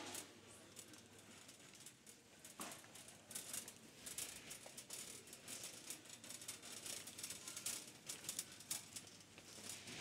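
Faint, irregular rattling and clicking of a wire shopping cart being pushed along, its basket and load jostling as it rolls.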